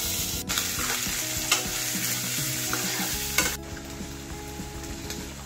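Coconut frying in oil in a pan, sizzling loudly as it is stirred, with a few sharp knocks of the spatula against the pan. The sizzle drops away suddenly about three and a half seconds in, leaving a quieter hiss.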